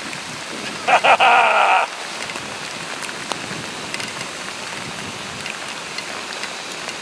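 Steady hiss of splashing water, with a brief loud high-pitched sound of several tones about a second in.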